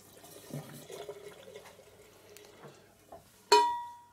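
Faint dripping and handling at a sink, then about three and a half seconds in a sharp metallic clink of a stainless steel thermos, ringing briefly with a clear tone before it dies away.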